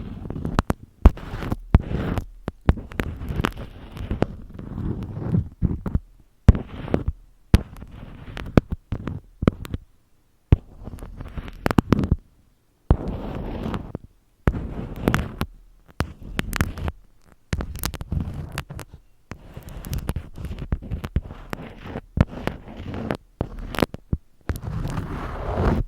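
Close-miked ASMR handling sounds: irregular crackling and sharp clicks in short bursts, broken by brief silent gaps.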